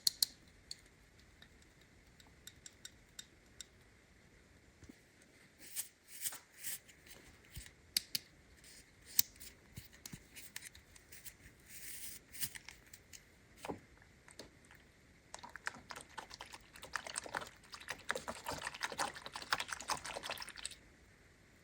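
Hands unboxing a plastic toy playset: scattered light clicks and taps of plastic pieces and packaging, then several seconds of dense crinkling rustle of packaging that stops abruptly near the end.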